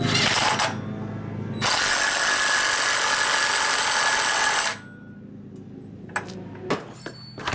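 DeWalt 20V cordless impact driver running on the centre bolt of a drive pulley on a go-kart engine's crankshaft. It runs in a short burst, then steadily for about three seconds. A few light clicks and knocks of tool and parts follow.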